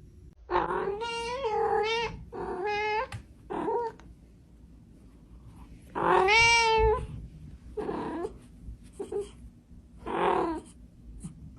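Domestic cat meowing again and again, with about seven drawn-out meows separated by short pauses. The longest and loudest comes about six seconds in.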